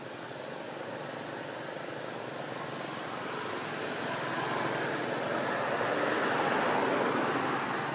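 A motor vehicle passing by: a rushing noise that swells gradually and eases off slightly near the end.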